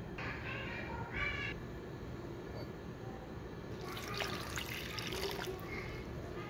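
Metal spoon stirring cornstarch into water in a plastic bowl, scraping and splashing, from about four seconds in. Earlier come two short high-pitched calls.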